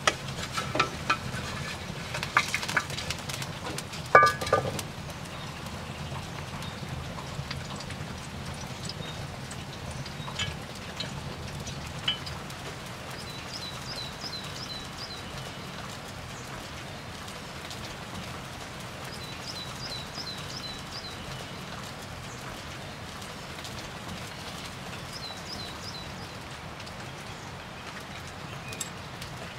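Open wood fire crackling with a steady hiss, with a cluster of sharp pops in the first few seconds. Three times, a bird sings a short run of quick high chirps.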